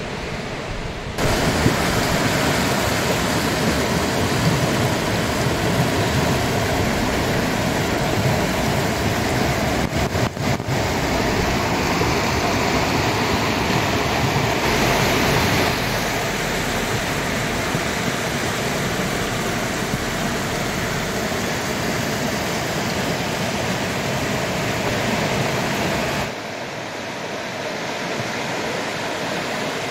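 Steady rushing of a fast-flowing river over rocks. It gets louder about a second in and drops back near the end.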